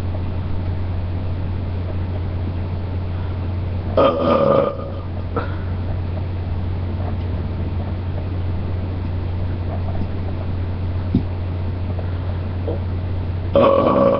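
A person burping loudly twice, about ten seconds apart, each burp under a second long, over a steady low hum.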